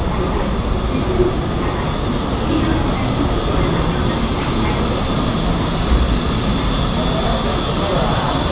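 Kintetsu 80000-series Hinotori limited express rolling slowly along the platform as it pulls in: a steady loud rumble of wheels and running gear, with a faint thin high whine over it.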